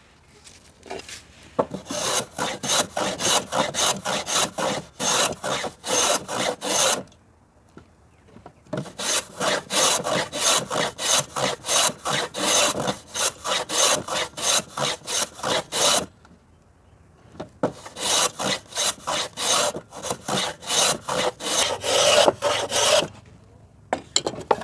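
Metal bench plane shaving the edge of an MDF plate, trimming it down to a marked line: quick back-and-forth rasping strokes, about two to three a second, in three runs of several seconds with short pauses between.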